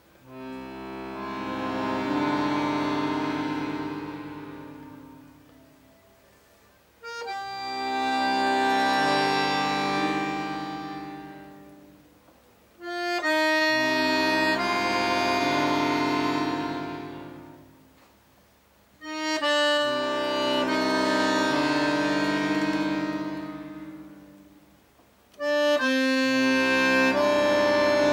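Chromatic button accordion playing slow, sustained chords: five long phrases, each swelling to a loud chord and dying away over about five seconds, with short quiet gaps between. The first comes in gradually; the later ones start abruptly.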